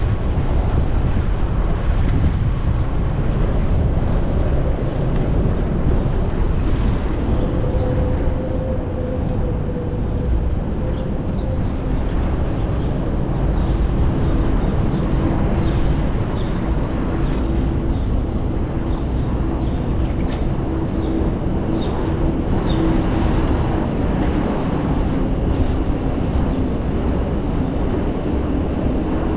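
Wind rumbling on an action camera's microphone while riding a bike through city traffic, with a steady engine-like hum from nearby vehicles from about halfway on.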